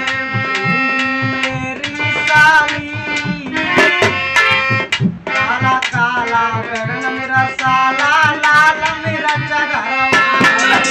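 Live folk music: a harmonium holding reedy chords over a steady beat on a dholak drum, with a man singing in wavering phrases that come in about two seconds in and again in the middle.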